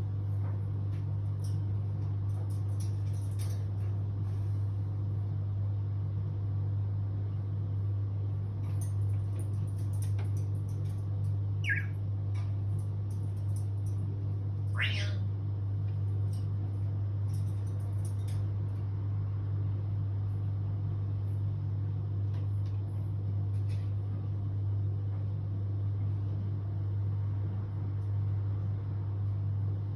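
African grey parrot giving two short calls, the second a meow-like glide, over a steady low hum and a few faint clicks.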